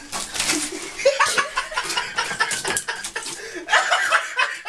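A person laughing and chuckling in short breathy peals.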